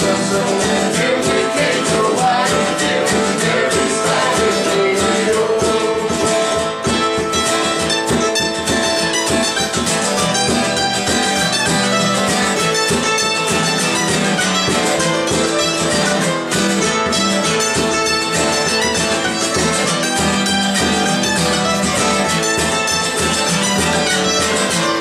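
Live acoustic Irish folk music: an acoustic guitar strummed in a steady driving rhythm, with a fiddle and a bodhrán playing along.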